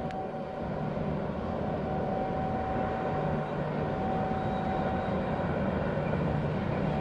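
A freight train hauled by an electric locomotive approaching: a steady rumble that grows louder, with a steady whine above it.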